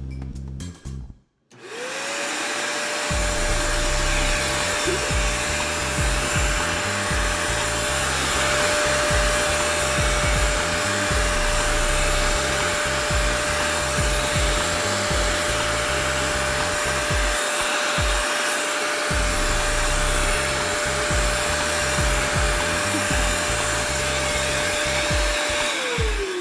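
Vacuum cleaner fitted with a pet grooming brush attachment, its motor spinning up about a second in and then running steadily with a whine and a rush of air, winding down near the end.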